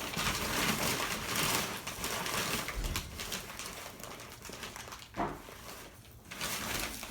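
Wrapping paper rustling and crinkling, a dense crackly noise that is loudest for the first three seconds, then thins out.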